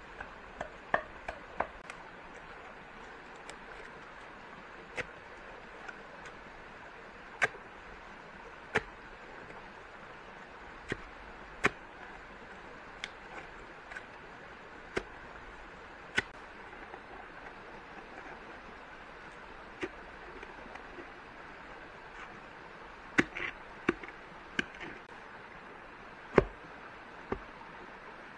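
Sharp knocks of a tool striking wood, scattered and irregular: single blows and quick clusters with pauses of a few seconds between, over a steady hiss.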